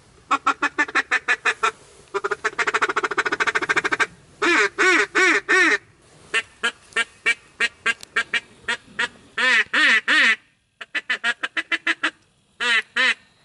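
Duck call blown in runs of loud, sharp quacks, with a fast rattling chatter like a feeding chuckle from about two to four seconds in, then more quack sequences and a final pair of quacks.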